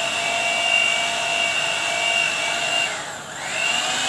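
Electric hand mixer running, its motor whining steadily as the beaters whisk egg, oil and sugar batter in a glass bowl. About three seconds in the pitch dips briefly and climbs back up.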